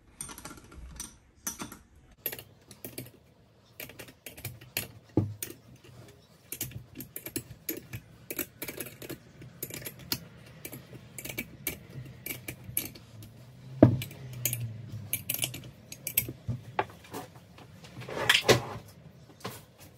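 Small metal clicks, taps and clinks of bolts and clamp plates being fitted and tightened by hand on a turbocharger's housings, with one sharper click partway through and a louder clatter near the end.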